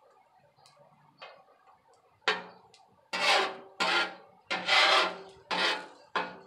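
Slotted metal spatula scraping across a steel flat-top griddle, breaking up eggs. There is one faint stroke about a second in, then about six loud, quick scrapes in the second half.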